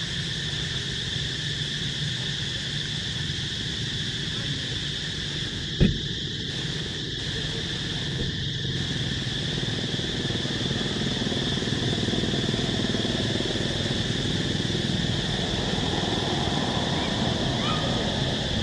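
Steady insect chorus, a constant high-pitched buzz, over a low rumble, with one sharp thump about six seconds in.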